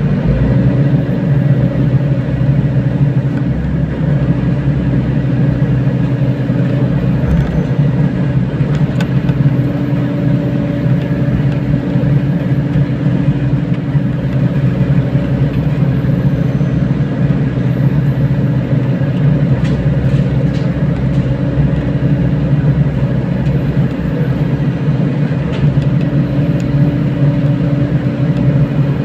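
Mini excavator engine running steadily at an even pitch, with a few faint clicks.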